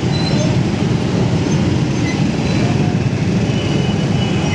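Steady drone of a motorcycle engine and the surrounding road traffic, heard from the motorcycle while it crawls through the traffic.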